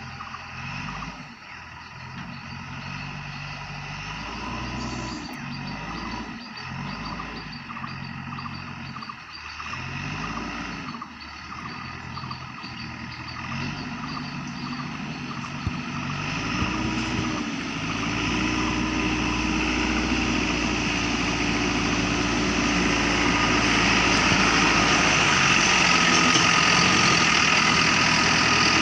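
JCB 3DX backhoe loader's diesel engine working, revving up and dropping back every few seconds. Over the last ten seconds it holds a higher speed and grows louder.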